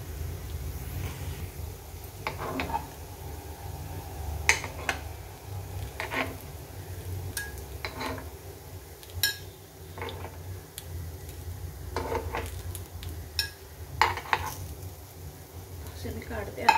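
A metal spoon clinking and scraping on a non-stick appe pan as cooked appe are scooped out one by one. The strokes are short and come a second or two apart, over a steady low hum.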